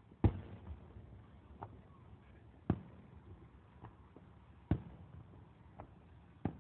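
Distant aerial fireworks going off: four sharp bangs about two seconds apart, the first the loudest, with fainter pops in between.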